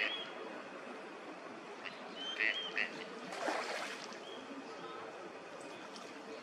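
Two short, high, arched bird calls in quick succession about two and a half seconds in, over a steady outdoor background hum. A brief rushing noise follows a second later.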